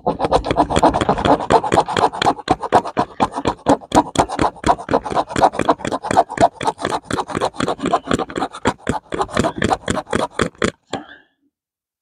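Metal nail file of a pocket multi-tool rasping back and forth across the edge of a counterfeit Silver Eagle coin in quick strokes, about five a second, stopping near the end.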